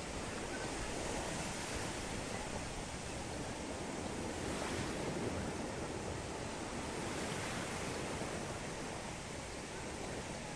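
Ocean surf: a steady rush of waves breaking and washing ashore, swelling a little about halfway through.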